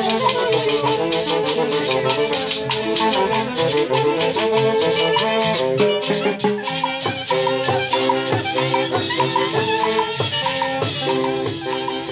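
A small band of saxophones, clarinets and trumpet playing a melody together, over an even beat from timbales, cymbal and a scraped metal güiro.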